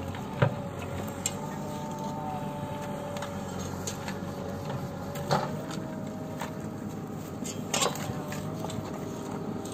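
A motor running steadily with a steady whine, and a few sharp knocks about half a second, five seconds and eight seconds in.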